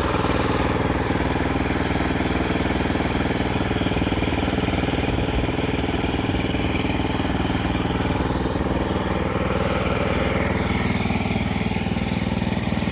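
An engine running at a steady speed, without revving up or down.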